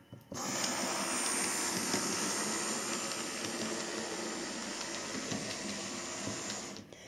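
Small electric motor of a model railway shunter locomotive whirring steadily as it runs along the track, with the wheels rattling on the rails; the sound eases slowly as it moves away and stops about a second before the end.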